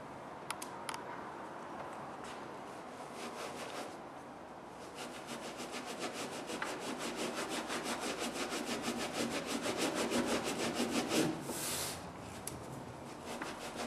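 A baren rubbed in quick, even strokes over the back of printing paper laid on an inked plate, a scratchy rasping rub of several strokes a second that picks up and grows louder about five seconds in, after a few light clicks at the start. This is the hand-burnishing that transfers the ink from a relief plate to the paper.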